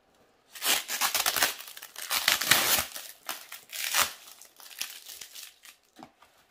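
Plastic bubble wrap crinkling and rustling as it is handled, cut and pulled off a package. It comes in loud bursts over the first four seconds, then softer rustling.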